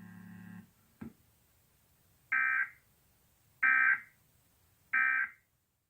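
Emergency Alert System end-of-message (EOM) data bursts: three identical short, harsh digital squawks about 1.3 seconds apart, the coded signal that closes the alert. Before them a low steady hum fades out within the first second, and there is a single click.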